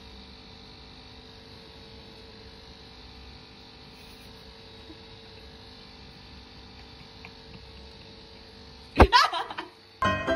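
Steady electrical hum with one constant tone, the room tone of a quiet tiled room. About nine seconds in comes a short loud sound whose pitch rises, and piano music starts just before the end.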